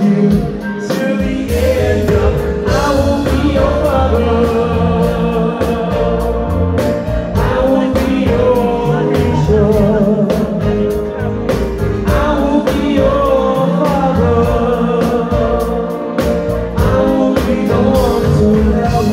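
Live pop band playing a song: a male lead vocal with backing singers over a full band, with a steady drum-kit beat.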